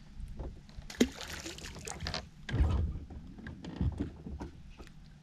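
A small crappie dropped back into the lake with a splash about a second in, followed by a few low thumps on the boat deck as the angler handles the rod.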